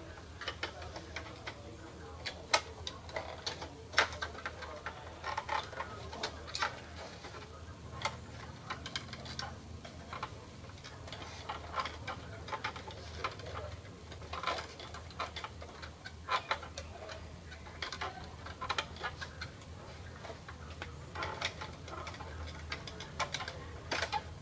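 Irregular clicks and taps of plastic parts being handled while an Epson L210 inkjet printer is taken apart, with a couple of sharper snaps among them, over a steady low hum.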